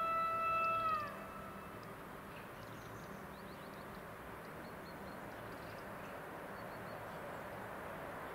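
Train horn: the second note of a two-tone air horn sounds and ends about a second in with its pitch sagging. It is followed by the steady, slowly rising rumble of the train approaching the crossing.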